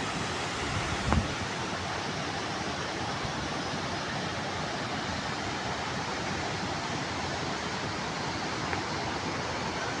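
Steady rush of a mountain waterfall, with one brief low thump about a second in.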